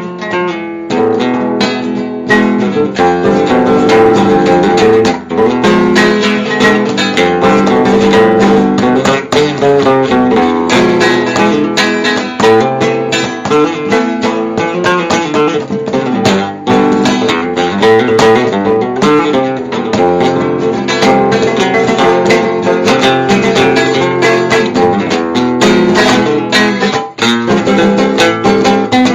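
Acoustic guitar played solo, a continuous passage of quick plucked and strummed notes.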